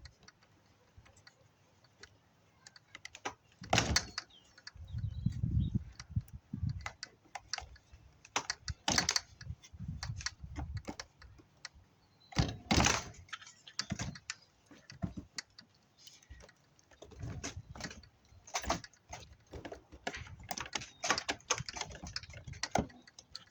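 Irregular clicks, taps and knocks of a pocket knife cutting and prying through a dishwasher's plastic parts and pipes, with a few heavier low thumps as the parts are handled.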